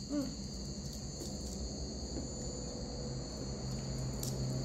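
Crickets chirping in a steady, continuous high-pitched trill.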